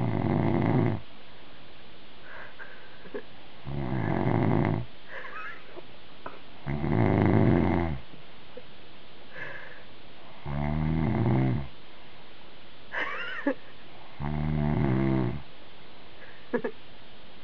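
A sleeping man snoring, one snore about a second long every three to four seconds. Brief higher squeaks come between some of the snores.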